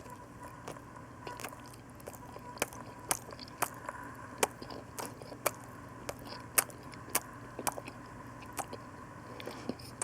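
A person chewing a mouthful of food close to the microphone, with irregular sharp wet mouth clicks about once or twice a second. A faint steady electrical hum runs underneath.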